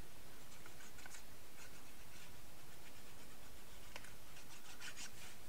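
Faint rustling and light scraping of paper card being handled on a cutting mat, over a steady background hiss.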